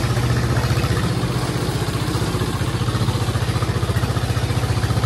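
A hand tractor's engine running steadily with a fast, even beat while it pulls a loaded trailer.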